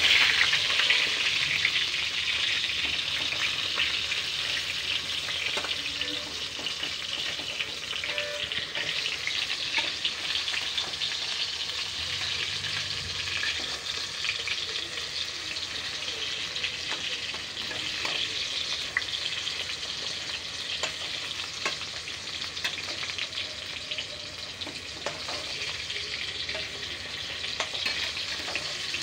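Brinjal slices sizzling and crackling as they shallow-fry in hot mustard oil in a metal kadai, loudest in the first couple of seconds. Now and then the fork or spatula turning them taps and scrapes against the pan.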